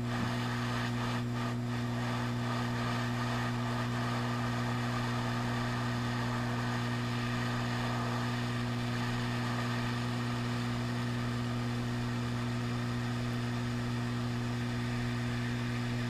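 Hot air rework station running steadily, a low blower hum with an even hiss of air, as it heats a new U2 Tristar charging chip on an iPhone logic board to melt its solder balls and reflow it into place.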